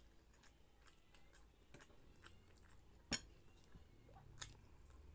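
Faint chewing and mouth sounds from eating rice and stewed pork by hand: small soft wet clicks about every half second, with one sharper click about three seconds in.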